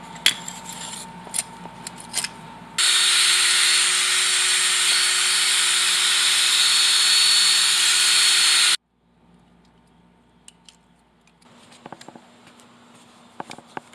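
Electric power drill running steadily at full speed for about six seconds while boring a slanted hole into the earth, then stopping abruptly. Light clicks and handling noises come before and after.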